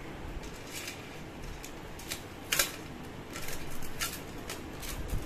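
Handling of plastic-packeted jewellery: a string of short crinkles and clicks, loudest about two and a half seconds in.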